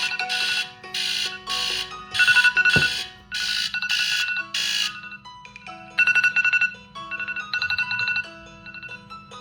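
Smartphone alarm tones playing: a rhythmic pattern of repeated bright chime pulses, which changes about five seconds in to a different, sparser melody of short plucked-sounding notes.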